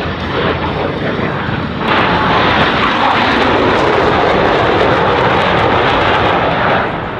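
Jet roar from Blue Angels F/A-18 Hornets passing the crowd. It swells sharply about two seconds in, holds loud, and eases off near the end.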